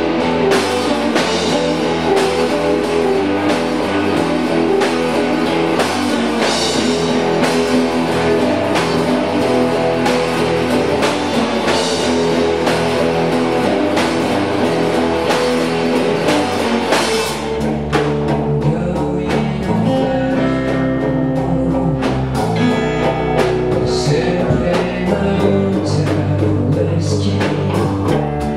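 Live band playing a laid-back blues groove: guitar, bass guitar and drum kit, with a voice singing over it. A little over halfway through the drumming thins out and the bass comes forward.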